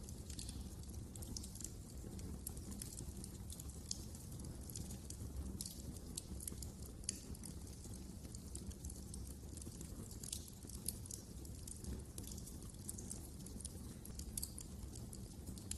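Wood fire burning in a fireplace, crackling with many small, irregular pops over a steady low rumble of the flames.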